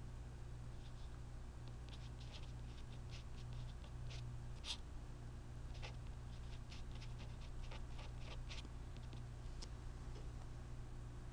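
Irregular light clicks and taps, a couple of dozen spread over several seconds, over a steady low electrical hum.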